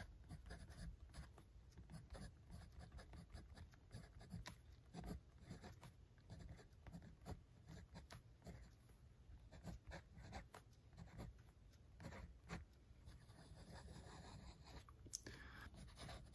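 Montblanc Meisterstück 146 fountain pen's fine 18-karat gold nib scratching faintly across paper in many short strokes as letters and numbers are written.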